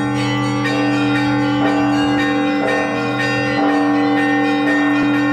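Russian Orthodox church bells ringing: a low bell's sustained hum under smaller bells struck in a steady pattern about once a second.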